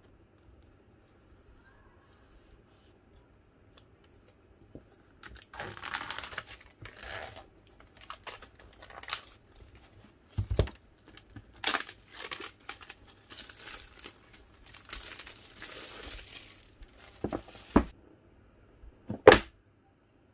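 Plastic shrink-wrap being torn and peeled off a cardboard box, crinkling in irregular bursts that start about five seconds in. A few sharp knocks come near the end.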